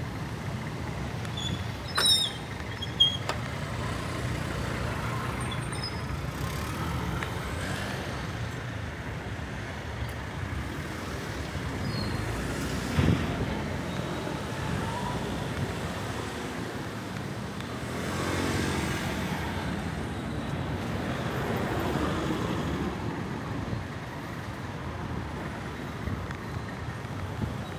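City street traffic: cars and vans passing with a steady rumble that swells as vehicles go by, with a few short sharp sounds about 2 and 3 seconds in and a knock about 13 seconds in.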